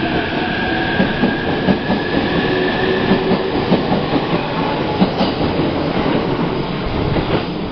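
Narita Express electric train pulling out of the station, its wheels clicking quickly over the rail joints, with a high motor whine that rises slightly as it gathers speed.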